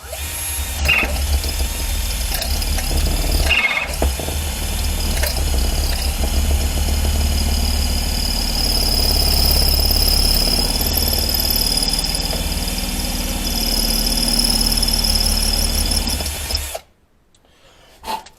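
Power drill running an M8 Heli-coil drill bit, re-drilling a stripped bolt hole in a cylinder head's exhaust-manifold face so it can be re-tapped for a thread insert. It runs steadily with a high whine, pauses briefly nearly four seconds in, and cuts off suddenly about seventeen seconds in.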